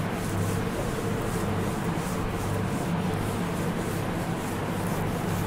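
A chalkboard duster rubbing across a chalkboard in repeated wiping strokes, erasing chalk writing, over a steady low hum.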